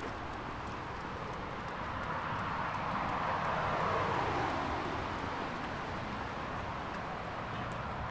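A vehicle passing by: a steady rushing noise that swells to its loudest about halfway through, dropping in pitch as it goes past, then eases off.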